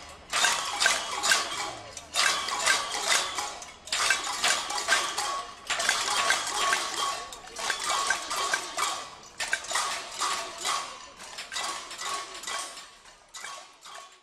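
A crowd banging pots and pans in a cacerolada protest: a rhythmic metallic clatter that comes in phrases of about two seconds with short breaks, fading out near the end.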